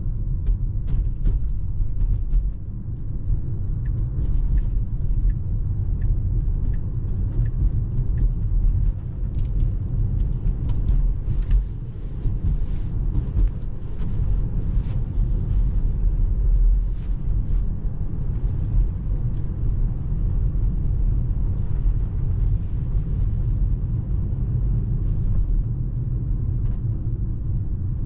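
Tyre and road rumble inside a Tesla driving on snowy roads, steady and low. For the first several seconds a turn signal ticks at about one and a half ticks a second, and a scatter of sharp clicks and hiss comes around the middle.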